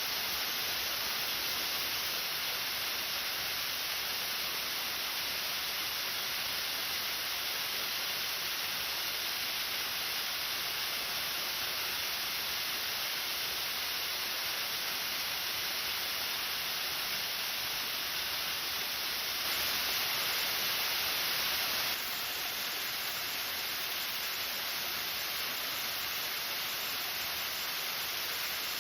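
Waterfall, water falling steadily: an even rushing hiss.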